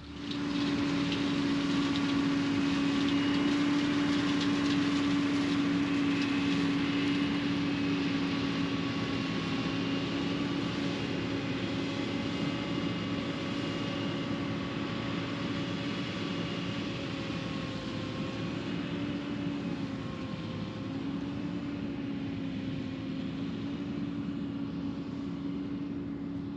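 Heavy diesel engine running steadily under load with a constant droning hum. Its pitch sags and breaks briefly about two-thirds of the way through, then steadies again.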